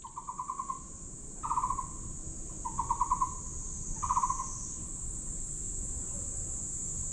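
Steady high-pitched insect buzzing, with four short, rapidly pulsed calls from a bird about a second and a half apart.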